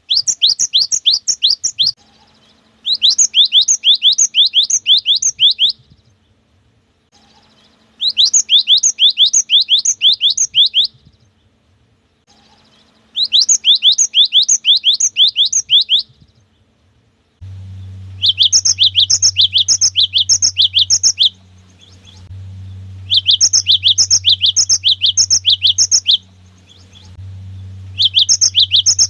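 Cinereous tit (gelatik batu) singing its rapid repeated two-note "wucit wucit" song. It comes in phrases of about three seconds, several notes a second, with short pauses between. About two-thirds of the way through, a steady low electrical hum comes in beneath the song.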